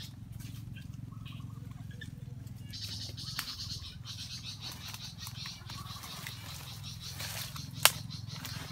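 Tropical forest wildlife calling: a high, fast-pulsing chorus starts about three seconds in over a steady low hum. A single sharp click near the end is the loudest sound.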